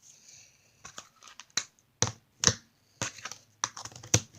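Slime being squeezed and worked in the hands, giving a string of sharp clicking pops, several spread out, as trapped air bursts.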